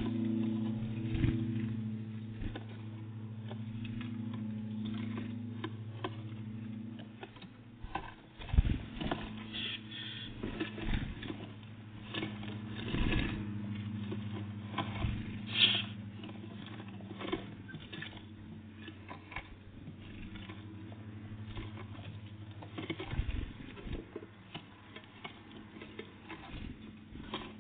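Great tits and blue tits at a feeder: irregular taps, scratches and pecks of small birds landing and picking at seed, with a few brief high chirps, over a steady low hum.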